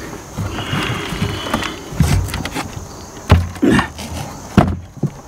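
A removed exterior door in its wooden frame being shifted and tilted by hand: wood scraping, a few knocks and dull thumps as the door and frame are moved.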